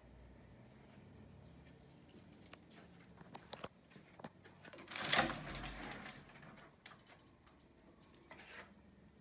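Wooden louvered closet door being opened, its slats and hardware clattering loudest about five seconds in, with light clicks and rustles before and after.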